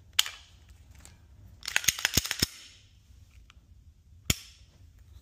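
HK CC9 pistol being dry-fired to feel its trigger break and reset: sharp metallic clicks of the trigger and action. There is a single click, then a quick cluster of clicks about two seconds in, and another single click near the end.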